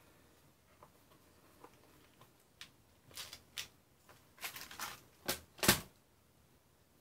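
Small clear plastic parts box of screws being handled on the workbench: scattered light clicks, then a run of louder plastic clicks and rattles in the second half, ending in two sharp knocks, the last the loudest.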